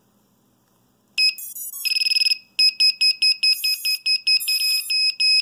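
Small black buzzer on a racing drone's flight controller, wired straight to battery voltage (about 11 volts) instead of 5 volts, beeping when the battery is plugged in. A high single-pitched beep starts suddenly about a second in, with a quick stutter, then goes on as a fast run of short and longer beeps, several a second. It is really loud.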